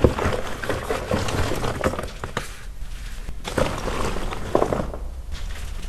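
Gym chalk chunks and powder being handled and crushed by hand: a grainy rustle with many small snaps and crackles, in two busy stretches with quieter pauses between them.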